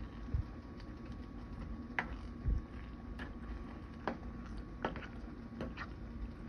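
A plastic spoon stirring thick, creamy pasta in a metal pot. Irregular clicks and knocks as the spoon hits the pan, with two duller thumps, over a steady low hum.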